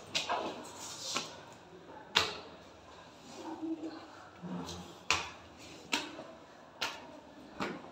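Footsteps on hard stone stairs, one sharp step about every second, with a faint voice in the middle.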